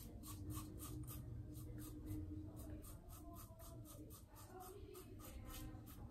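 Karve Christopher Bradley safety razor with a vintage Personna blade scraping through stubble on the upper lip in short, quick strokes, about three a second, faint.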